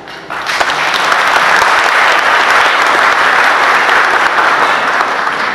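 Congregation applauding, starting suddenly just after the start and dying away near the end.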